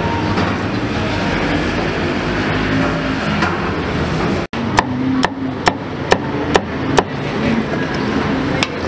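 Cleaver chopping crispy pork belly on a thick wooden chopping board: six sharp strokes about twice a second, starting about halfway in, with another near the end. Before them there is a steady background din.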